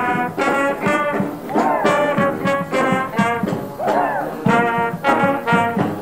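Street marching band playing: saxophones, trumpets and other brass in short repeated phrases over a steady drum beat.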